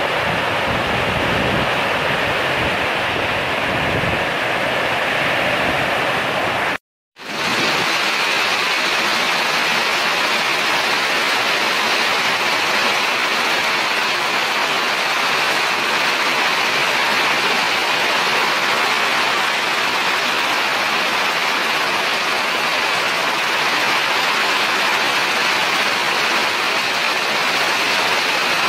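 Heavy rain falling steadily as a dense, even hiss. It cuts out for a moment about seven seconds in, then goes on unchanged.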